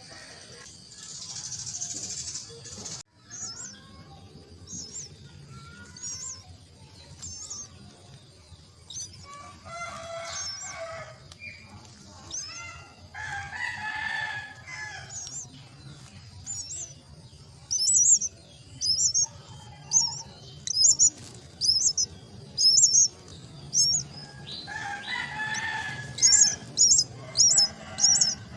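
Common myna nestlings begging: a long series of short, high-pitched calls repeated over and over, growing louder and faster in the second half. A few lower, harsher calls break in now and then.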